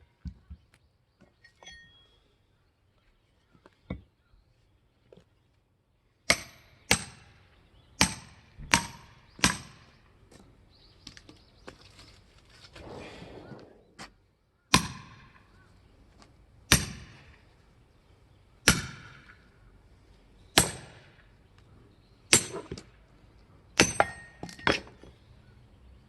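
Firewood being split: a dozen or so sharp strikes with a metallic ring. After a few quiet seconds there is a quick run of about six, then roughly one every two seconds.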